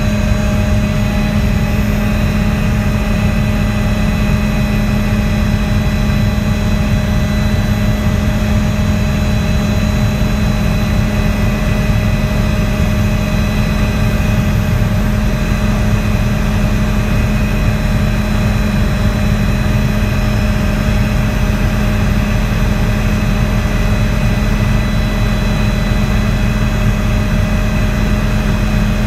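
Hughes 500D helicopter in steady flight: its turboshaft engine and rotors make a loud, unchanging drone with a strong low hum and several steady high whines over a low rumble.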